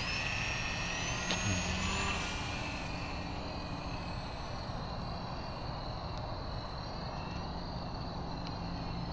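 Small RC plane's motor and propeller whining, rising in pitch over the first two seconds as it speeds up, then running at a steady pitch.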